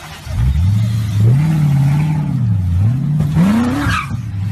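Car engine revving: its pitch rises and falls, then climbs steeply before dropping sharply back to a steady lower note near the end.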